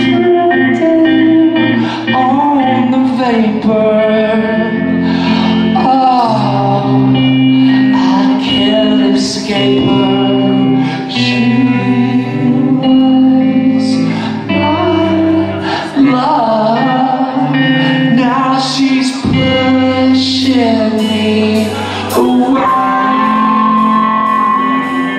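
Rock music with a male voice singing over guitar and bass.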